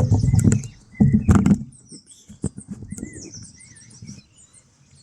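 A few knocks, clicks and rattles of hands handling parts in the first second and a half, then small birds chirping and warbling in the background.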